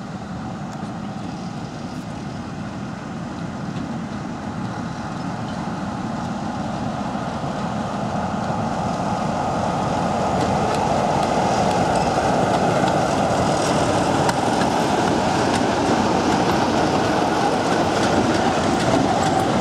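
British Rail Class 45 'Peak' diesel locomotive, its Sulzer twin-bank diesel engine running as it approaches, growing steadily louder over about the first twelve seconds and then holding loud as it passes close by. Faint clicks of its wheels over the rail joints come through as it draws near.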